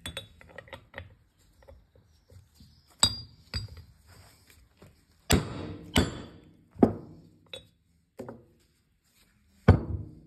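Hammer striking a seal-driving mandrel set in a tractor's PTO nose casting, driving a rotary lip seal home: about eight sharp blows, each with a short metallic ring, irregularly spaced from about three seconds in, the last about a second and a half after the others. Light clicks of handling come in the first second.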